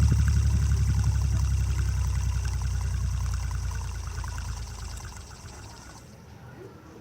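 Fidget spinner spinning right against a microphone: a loud, low whir with rapid fluttering pulses that fades away over about five seconds as the spinner runs down.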